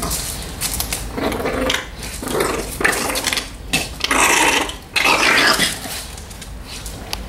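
Staffordshire Bull Terriers, a mother and her puppies, play-fighting: a run of short growls and yaps in about five bursts, the loudest just past the middle, with claws clattering on the tile floor.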